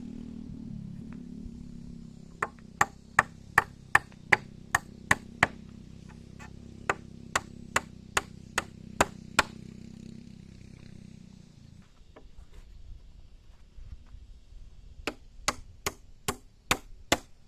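Hammer blows in a quick steady run, about two to three a second, a pause, then another run starting near the end. Under the first run lies a low steady hum that stops about two-thirds of the way through.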